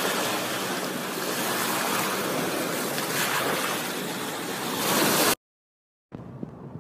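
Surf washing onto a beach: a loud, steady rushing hiss that cuts off abruptly a little past five seconds in. After a short gap, a much quieter stretch follows with a few small knocks.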